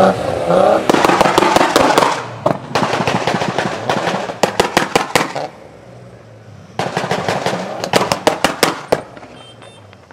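A modified car's exhaust popping and banging in rapid volleys: a short rev at the start, then three bursts of dense pops with brief gaps between them.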